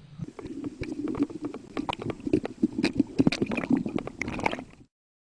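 Underwater noise: a dense, irregular run of sharp clicks and knocks over a low rumble, cutting off abruptly near the end.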